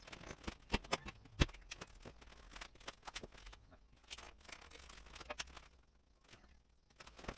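Scattered light clicks and knocks: sandaled footsteps on a concrete floor and hands working in a tractor's engine bay, with one firmer knock about a second and a half in.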